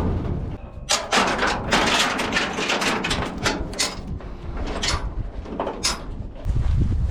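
Irregular knocks and clatter: many sharp hits scattered over several seconds, such as gates, panels or a trailer being handled. A steady low rumble comes in near the end.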